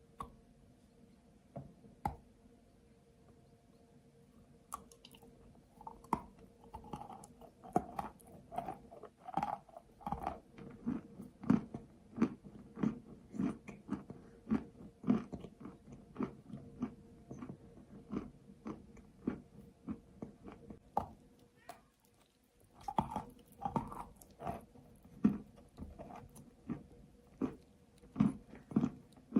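Close-up biting and chewing of a hard slate-pencil clay bar: a run of sharp, dry crunches about one or two a second, with a short pause about two-thirds of the way through before the crunching resumes. A faint steady hum runs underneath.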